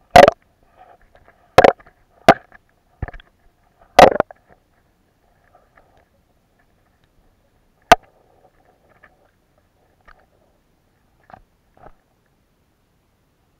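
Irregular sharp knocks picked up by an underwater camera in murky lake water. Five loud ones come in the first four seconds and another at about eight seconds, followed by a few faint ones near the end.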